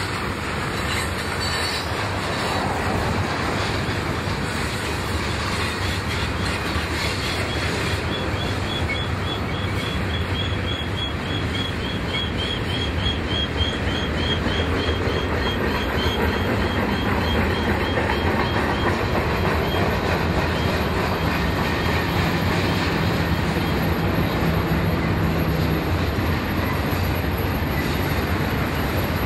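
Train rolling past: a steady rumble of railcars on the rails, with a run of quick, repeating high-pitched squeaks for several seconds through the middle and a low steady hum joining in later.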